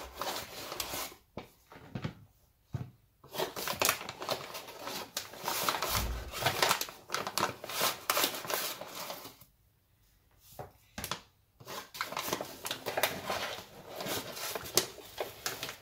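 A metal spoon scooping flour out of a paper flour bag: the paper crinkling and rustling and the spoon scraping, in a string of short rustles broken by two pauses of about two seconds.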